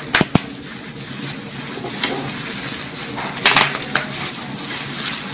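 Plastic shockproof packaging being crumpled and squeezed, a steady crackle with a couple of sharp snaps just after the start and a louder flurry of crackles about three and a half seconds in, made to imitate a burning fire.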